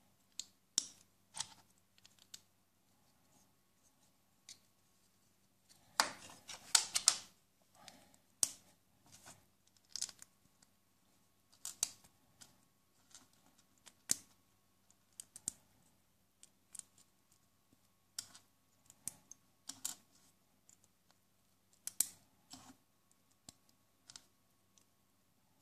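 Small plastic construction bricks being handled and snapped together: scattered sharp clicks, with a louder burst of clattering about six seconds in.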